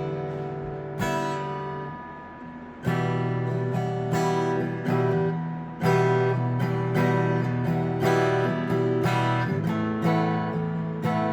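PRS SE Angelus A60E acoustic guitar, newly strung with 12–53 strings, strummed in chords: a few single strums left to ring, then a steady strumming rhythm from about three seconds in.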